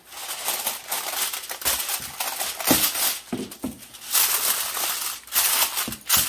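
Aluminium kitchen foil crinkling as hands press and crimp it down over a baking dish, in uneven bursts of crackle that are loudest about four and five seconds in.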